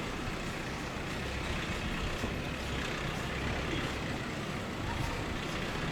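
Steady gusty wind from a snowstorm blowing against the microphone, an even rushing noise with a low rumble.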